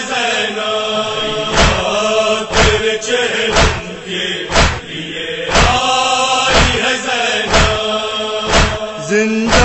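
Men chanting a mourning lament in unison, with a heavy thud about once a second, typical of matam chest-beating keeping time with the chant.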